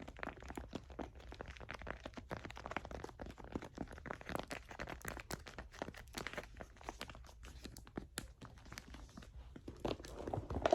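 Rapid, irregular fingernail tapping and scratching on a leather handbag, many light taps a second.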